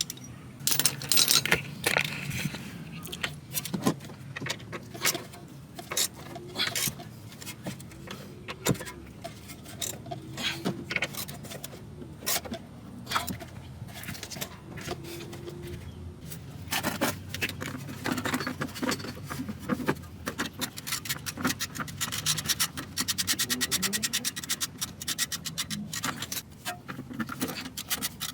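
Metal hand tools and sockets clinking and scraping against bolts and fittings, with a ratchet wrench clicking rapidly in the last few seconds.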